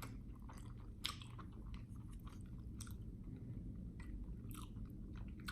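Close-miked chewing of a mouthful of escargot fried rice: faint, irregular wet mouth clicks and smacks.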